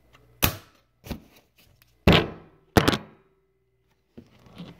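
Knife chopping through a foam Nerf dart, the blade knocking on a granite countertop four times within about three seconds; the third knock is the loudest and trails off briefly.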